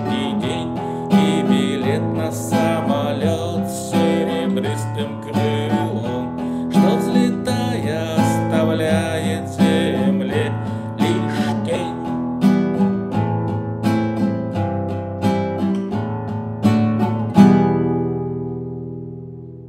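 Nylon-string classical guitar strummed and picked in a steady rhythm, ending with a final chord near the end that rings out and fades.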